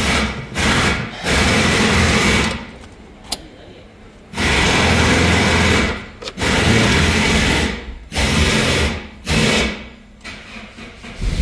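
Toyota Etios starter motor cranking the engine in several separate bursts of about a second each, with short pauses between them. These are the first start attempts on a freshly programmed immobilizer key.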